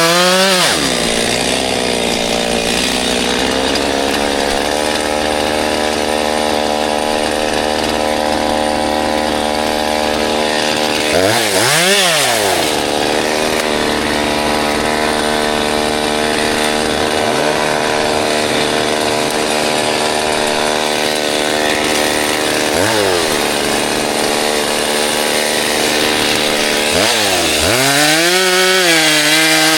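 Chainsaw running at high revs, cutting wood. Its engine pitch dips sharply and climbs back a few times, and wavers up and down near the end.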